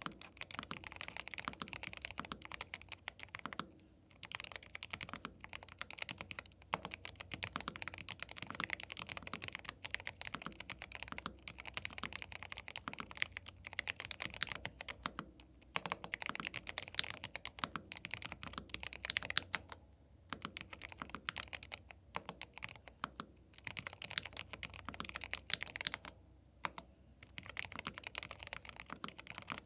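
YUNZII B75 Pro gasket-mount mechanical keyboard with Milk linear switches being typed on quickly: a dense, fast run of keystroke clacks, broken by a few brief pauses.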